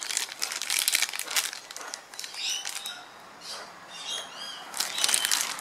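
Clear plastic bag crinkling as it is handled and turned over in the hands, loudest in the first two seconds and again near the end. In the quieter middle stretch a few short bird chirps come through.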